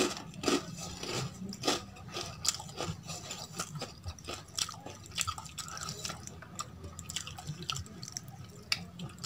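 Fingers mixing rice into rajma curry on a steel plate: wet squishing with many short, irregular clicks, along with chewing.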